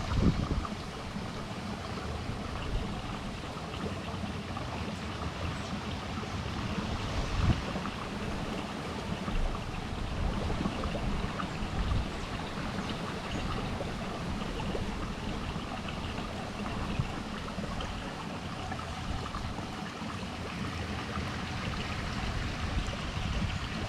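Steady water noise, lapping and trickling, with a few short low thumps, the strongest near the start and about seven and a half seconds in.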